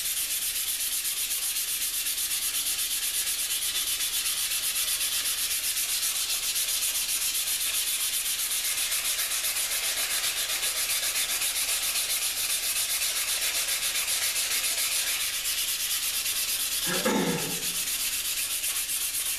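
Steady, rapid back-and-forth rubbing by hand on the etched surface of a Damascus-and-wootz san mai kitchen knife blade, scrubbing it clean after etching to bring out the pattern. It stops abruptly at the end. A brief vocal sound comes near the end.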